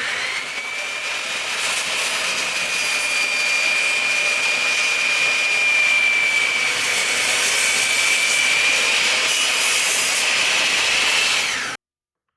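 Power saw spinning up and cutting door frame stock: a steady, high blade whine over the rasping noise of the cut. The sound stops abruptly near the end.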